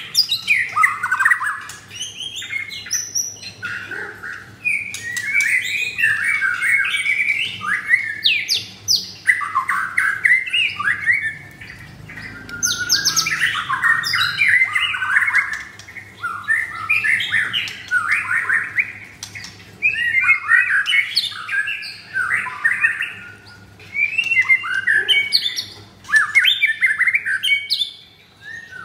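White-rumped shama (murai batu) singing loud, varied song phrases of fast whistles and chattering notes, each a second or two long, with short pauses between them.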